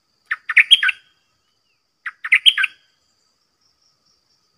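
Stripe-throated bulbul singing two short phrases of four or five quick notes each, about two seconds apart.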